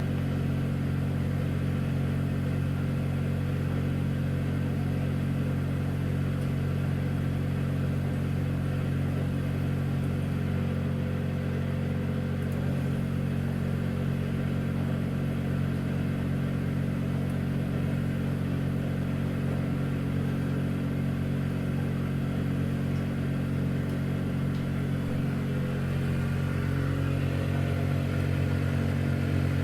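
Tumble dryer running steadily: a continuous motor hum with the drum turning, slightly fuller near the end.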